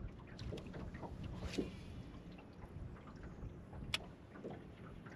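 Wind noise on the microphone over small water and hull sounds from a small aluminum fishing boat, with scattered light ticks and one sharp click about four seconds in.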